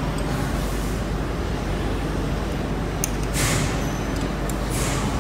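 Steady low machinery hum. A sharp click comes about three seconds in, followed by two short hisses.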